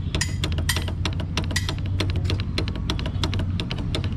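Quick, irregular metallic clicks and taps, about six to eight a second, over a steady low hum, while a motorcycle's hydraulic brake is being filled with fluid and bled of air.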